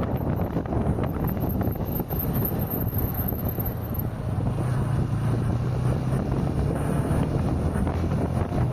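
Steady road noise of a car on the move: tyre rumble with wind noise on the microphone, and a low drone that grows slightly stronger about halfway through.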